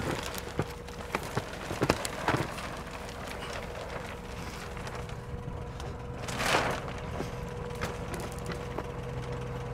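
Crinkling plastic and foil-blanket wrapping, with several sharp crackles in the first two and a half seconds and a brief rushing swell about six and a half seconds in, over the steady hum of an idling forklift engine.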